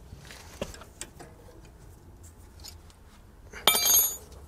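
Metal brake parts being handled: a few light clicks, then about three and a half seconds in a short ringing metallic clink of about half a second.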